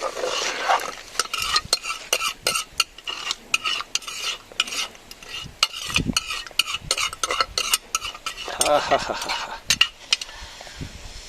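A metal spoon stirring and scraping rice frying in oil in a pressure cooker pot, with many quick clinks of spoon on metal over a steady sizzle.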